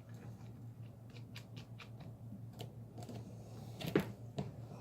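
Small clicks and taps of hands sorting through small air-hose fittings and their packaging, with two louder knocks about four seconds in, over a low steady hum.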